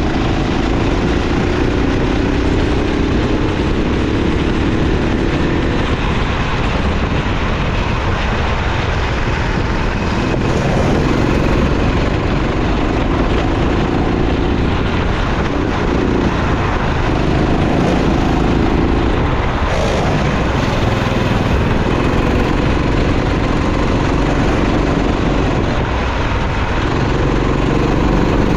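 Racing kart engine running hard, its pitch climbing under throttle and falling away several times as it eases off and picks up again.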